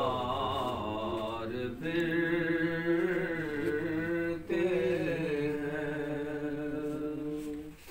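Unaccompanied devotional chant sung by one voice in long held notes that waver slightly. It cuts off right at the end.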